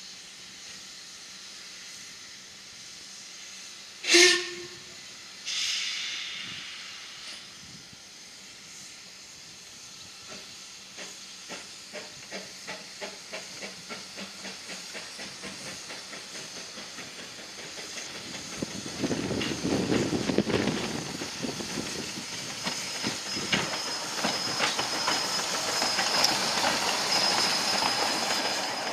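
A Hunslet-built narrow-gauge steam locomotive running slowly in towards the platform. A short loud whistle toot about four seconds in is followed by a burst of steam hiss. Then comes a steady beat about twice a second that grows louder as the engine draws close, with hissing steam and a thin high squeal as it comes alongside.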